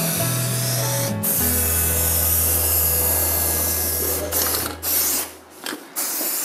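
Aerosol spray-paint can hissing as paint is sprayed onto metal window frames. It is one long continuous spray, broken once about a second in, then several short bursts in the last two seconds. Background music with sustained low notes runs underneath and fades out near the end.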